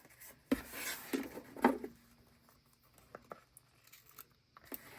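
Paper handling at a desk as a sticker is placed in a journal: short rustles and crinkles of the sticker sheet and paper in the first two seconds, then a few faint light taps.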